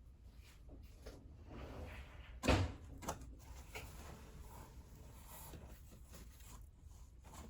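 Cardboard knocked and scuffed, with one sharp thump about two and a half seconds in and a smaller knock half a second later.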